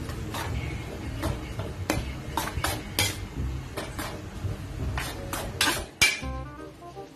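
Metal spatula scraping and knocking against a metal wok while stirring rice noodles: irregular clinks and scrapes, one or two a second, with the sharpest knock about six seconds in.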